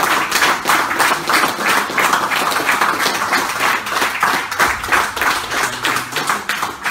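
A small group of people applauding with fast, dense hand clapping that keeps up steadily and begins to thin out at the very end.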